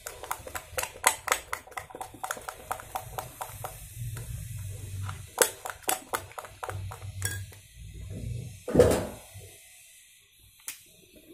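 Metal spoon stirring a thick, wet slime mixture in a glass bowl, clinking rapidly against the glass. The clinks thin out after about five seconds, and one louder thump comes about three-quarters through.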